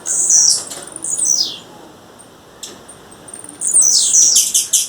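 Blue-black grassquit (tiziu) calling: two bursts of high, rapid chips and downward-sliding notes, one at the start and one near the end, with a single short chip about two and a half seconds in.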